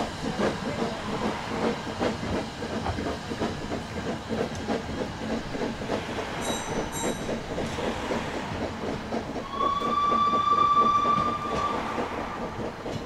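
Narrow-gauge steam locomotive working a train, its exhaust beating in a quick, even rhythm, with its whistle blowing one long steady note about three-quarters of the way through.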